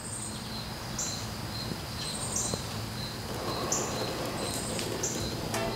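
Outdoor ambience of insects chirping in a steady pulsing rhythm, with short high bird calls every second or so over a low steady background noise.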